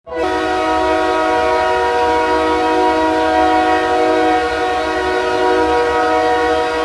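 The Wichita Thunder's 2007-08 hockey goal horn sounding one long, steady blast, several notes held together as a chord.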